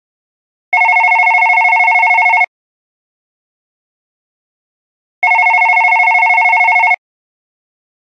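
Office desk phone ringing twice, each ring a rapid trill lasting about two seconds, with a silent gap of about three seconds between rings.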